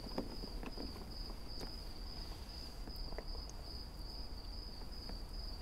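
Crickets trilling steadily in a single high continuous note, with a few faint soft clicks of the couple kissing.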